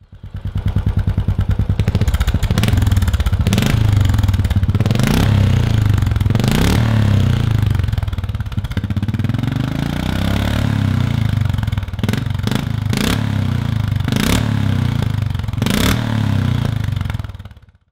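Royal Enfield Classic single-cylinder engine running through a Zard exhaust with its dB-killer fitted, idling with an even fast beat and blipped about eight times, each rev rising and dropping back quickly. The sound dies away just before the end.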